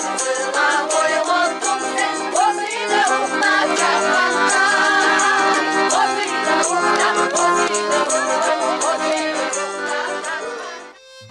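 Background music with a quick, steady shaker-like rhythm and a melody line; it fades out near the end.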